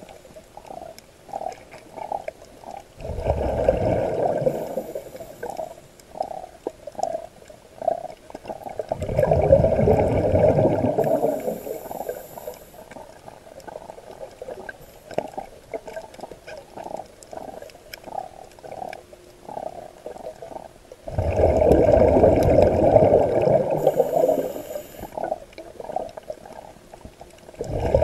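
Scuba diver breathing through a regulator underwater. Three long bubbling exhalations, each lasting a few seconds, and a fourth begins at the end, with quieter bubble gurgles and pops between them.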